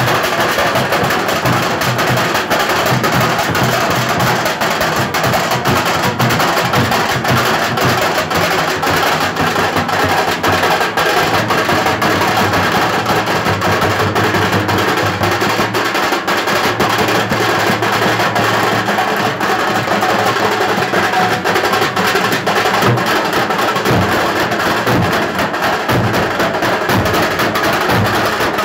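A group of large metal-shelled drums beaten together in a loud, dense, continuous rhythm.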